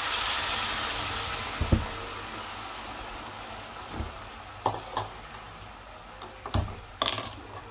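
Soup poured into a hot kadhai of stir-fried vegetables and paneer, sizzling loudly at first and dying down to a gentle bubbling simmer. A few light knocks come over the sizzle, the sharpest near the end.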